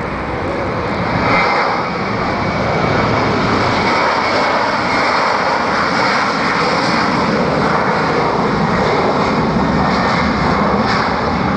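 Boeing 737's twin jet engines at take-off power as the airliner accelerates down the runway: a loud, steady rush of engine noise that swells slightly over the first few seconds and then holds.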